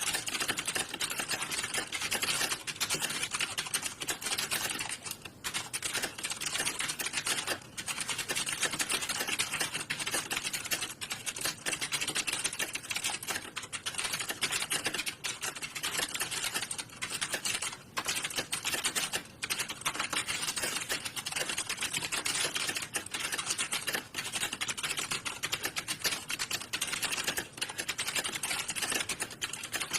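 Continuous, dense clatter of computer keyboards being typed on, the keystrokes of many typists in an exam hall overlapping into a steady patter with only a few momentary lulls.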